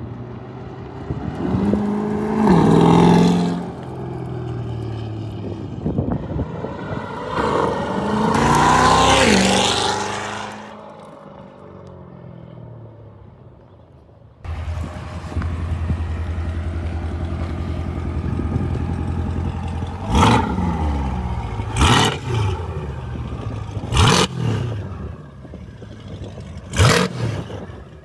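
Chevrolet C8 Corvette Stingray's 6.2-litre V8, running through cat bypass pipes in track mode, passing by twice with the pitch sliding as it goes. It then idles steadily and is blipped hard four times, each rev rising and falling quickly.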